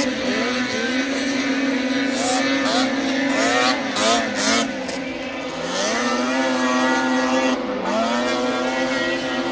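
Several racing snowmobile engines running at high revs, their pitch rising and falling as sleds come through the turn and accelerate away. There are repeated short rising whines early on, then longer climbs in pitch in the second half.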